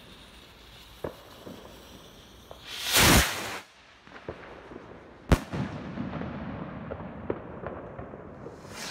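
Firework rocket launching with a rush of about a second, then a single sharp bang as it bursts in the air about two seconds later, followed by a few seconds of crackling. Another rocket's launch rush starts near the end.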